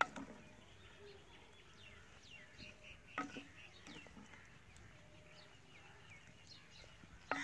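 Birds chirping in short falling notes, faint and scattered, while a wooden spoon stirs raw minced meat and chopped vegetables in a clay pot. The spoon knocks against the pot at the start, about three seconds in, and again at the end.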